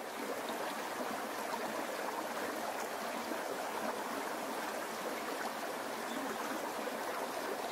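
Mountain stream running over rocks in small cascades: a steady rush of splashing water.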